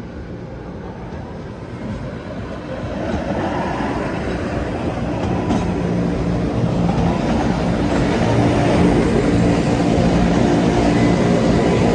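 A large vehicle's steady rumble with a low hum, growing louder over the first eight seconds or so and then holding.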